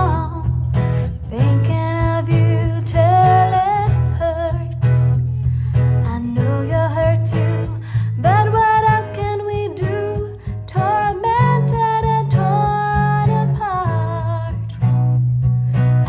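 Music played through a loudspeaker sound system: a song with plucked guitar over a heavy, steady bass line.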